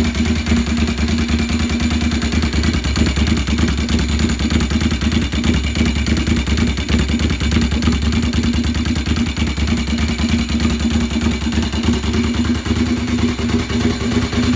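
1997 Ducati 748's L-twin engine running cold with no exhaust fitted, a loud, steady, choppy open-pipe note at a fast even idle.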